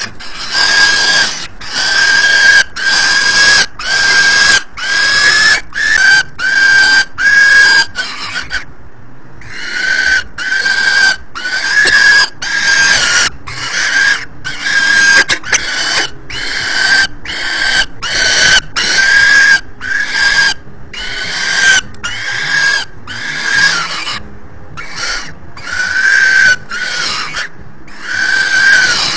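Peregrine falcon chick giving harsh, squealing food-begging calls over and over, about one to two a second, with a short break about nine seconds in; the calls of a hungry chick being fed.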